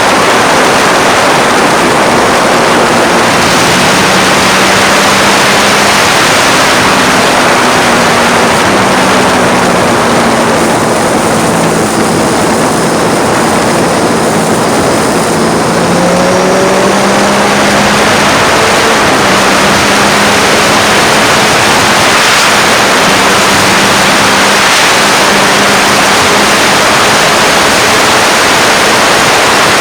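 Loud, constant wind noise on a phone microphone while riding a Triumph Street Triple motorcycle. The bike's 675 cc three-cylinder engine is heard faintly underneath, its pitch drifting gently up and down.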